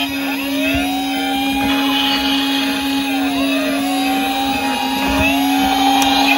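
Several battery-powered toy police car and ambulance sirens sounding together: an electronic wail that rises, holds and falls about every three seconds, over a steady low tone.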